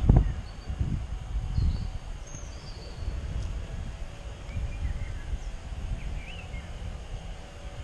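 Wind buffeting a head-mounted action camera's microphone in uneven gusts, with a thump right at the start and a few faint bird chirps above.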